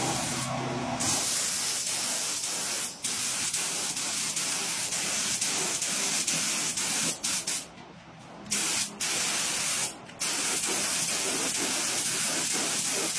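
Gravity-feed air spray gun hissing steadily as it sprays base coat. The hiss cuts out briefly several times as the trigger is let go between passes, the longest break about two-thirds of the way through.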